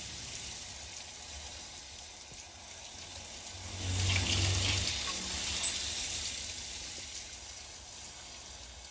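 Water running from a tap and splashing over a hot, just-brazed aluminium AC line to cool the joint: a steady splashing hiss that grows a little louder for about a second around four seconds in.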